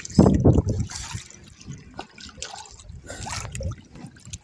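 Seawater dripping and trickling off a wet gill net as it is hauled out of the sea over the side of a small boat, with a loud burst of handling noise near the start.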